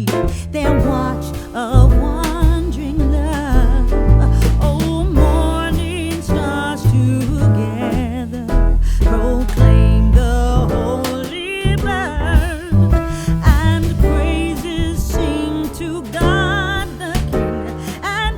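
Background music: a song with a singing voice over a steady beat with bass and guitar.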